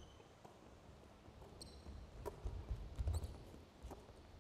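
Faint basketball dribbling on a hardwood gym floor, a few bounces about two to three seconds in, with short sneaker squeaks.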